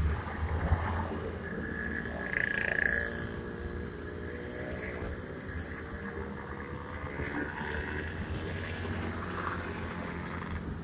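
Honda Scoopy scooter riding through city traffic: steady engine and road rumble with wind on the microphone. A brief higher-pitched sound from the traffic comes about two and a half seconds in.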